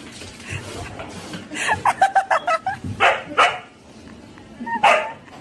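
A dog barking and yipping: a quick run of short, sharp calls about two seconds in, then a few single barks later on.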